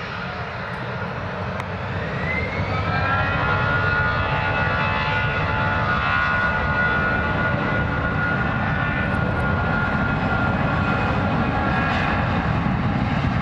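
Airliner engines growing louder over the first few seconds, then running steady and loud, with a high whine that rises in pitch and holds over a deep rumble.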